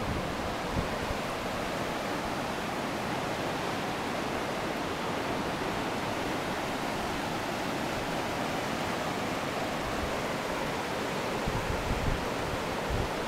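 River in flood, fast muddy water rushing and churning along a stone-walled channel: a steady, even rushing of water.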